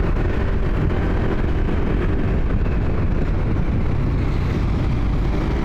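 Motorcycle engine running steadily while riding along a city road, with a continuous rush of road and wind noise.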